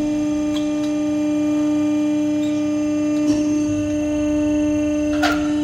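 CNC press brake's hydraulic power unit running with a steady, loud hum, with a couple of light knocks about three seconds in and near the end.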